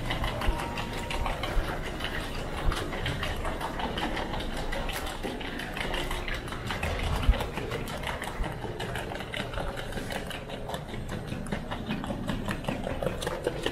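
Wheels of a rolling suitcase clattering over a tiled terminal floor: a fast, steady run of clicks over the hubbub of the airport hall.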